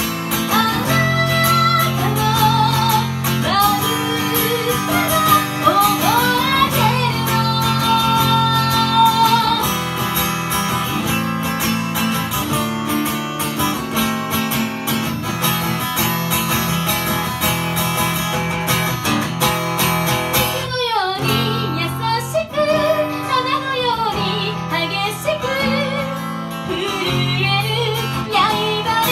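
Live song: a woman sings through a microphone, accompanied by an acoustic guitar.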